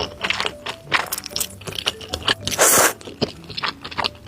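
Close-miked eating of chicken noodles mixed with Buldak spicy noodles: many short wet mouth clicks and chewing, with one loud slurp of noodles about two and a half seconds in.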